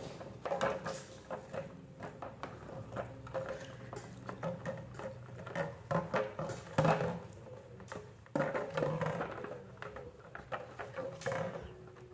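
Irregular clicks and knocks of a yellow parakeet's beak biting and working at a plastic bottle's screw cap, the bottle shifting and tapping on a stone floor, over a faint steady hum.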